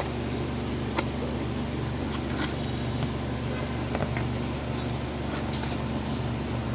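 A few light, scattered clicks and taps from a paper speaker cone and its voice coil being handled and fitted together, over a steady low drone.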